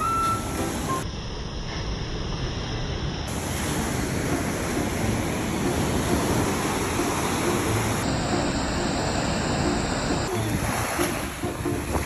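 Sea surf rushing and washing up a sandy beach, a steady noisy wash, with wind rumbling on the microphone.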